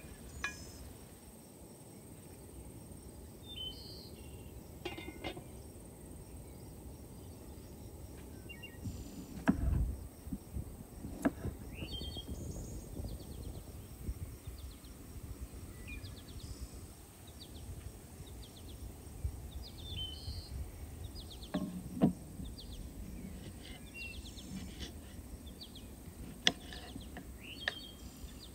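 Outdoor ambience with small birds chirping now and then over a steady low background, and a few sharp knocks and clicks from kitchen work at the table, the loudest about ten seconds in and again a little past twenty seconds.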